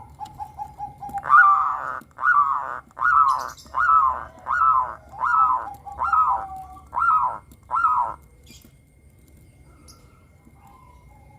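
Zebra dove (perkutut) singing: a quick run of short staccato notes, then nine longer, separate cooing notes about one every 0.8 seconds, stopping about eight seconds in.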